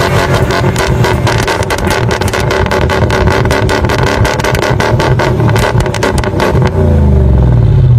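Toyota Hilux 2.8 four-cylinder turbodiesel driving hard, with knocks and rattles throughout; the revs fall away near the end.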